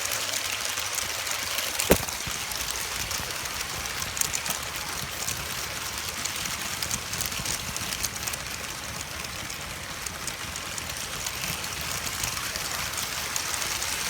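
Kazi brick-built toy train running on plastic track, a steady even whirring noise, with one sharp knock about two seconds in.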